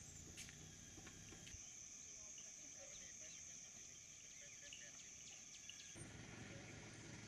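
Faint outdoor ambience dominated by a steady, high-pitched insect drone, crickets or cicadas, with a few faint ticks and chirps; the background changes slightly at a cut about six seconds in.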